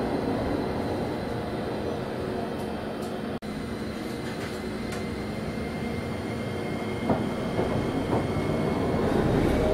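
Steady running hum inside a Chikuho Electric Railway tram-train car, heard while it stands at a station. About seven seconds in there is a knock. Near the end it grows louder, with a rising whine as the car moves off and speeds up.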